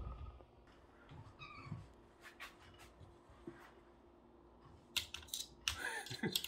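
Kittens pawing and climbing at a kitchen wall cabinet while hunting a bug: light taps and scrapes of claws on the cabinet door, mostly in the last couple of seconds, with a short faint cat chirp about a second and a half in. Faint throughout.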